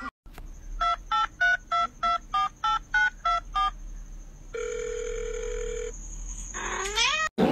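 Telephone keypad tones dialing a number: ten short beeps, about three a second. These are followed by a steady tone lasting about a second and a half, and a brief rising sweep near the end.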